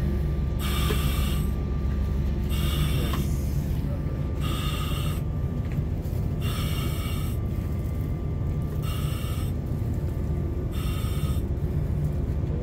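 Breathing through a self-contained breathing apparatus full-face mask: each inhalation pulls a short hiss of air through the demand valve, about one breath every two seconds, six in all.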